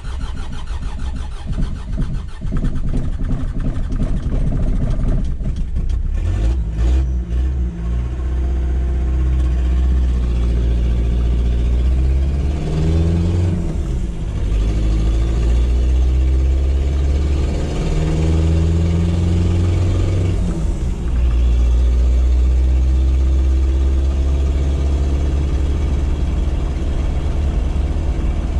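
Freshly rebuilt Mitsubishi 4D55T 2.3-litre four-cylinder turbo-diesel pulling the vehicle along the road, heard from inside the cabin. The engine climbs in pitch under acceleration and drops at a gear change, once a little before halfway and again about two-thirds of the way through.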